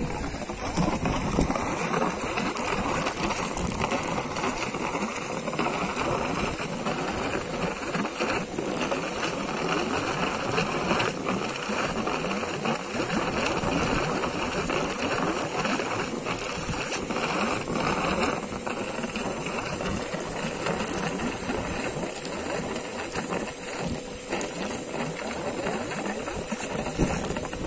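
An old air compressor running steadily, with a dense crackling rattle of air sputtering from the open end of a black polyethylene hose that is air-lifting a well. Only a little water is coming out, which the operator puts down to a weak compressor or a hose that has not gone deep enough.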